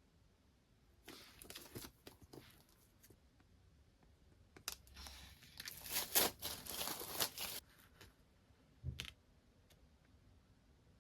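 Packaging being handled and torn open while unboxing a parcel: crinkling and rustling starting about a second in, a longer, louder stretch of tearing and crinkling in the middle, then one short knock.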